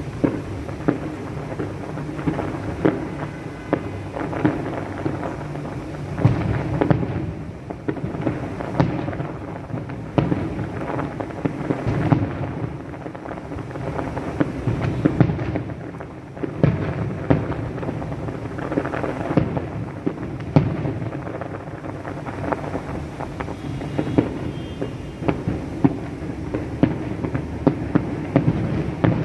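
Fireworks display: a rapid, continuous barrage of aerial shell bursts, sharp bangs over a steady low rumble and crackle, echoing.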